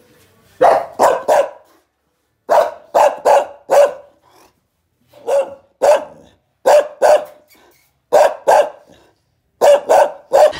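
Small long-haired dog barking repeatedly at a person close by, in quick runs of two to four sharp barks with short pauses between.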